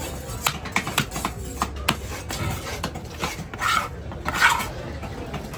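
Knife scraping the scales off a fish held on a wooden chopping block: repeated rasping strokes with sharp taps of the blade, the strokes getting longer and louder in the second half.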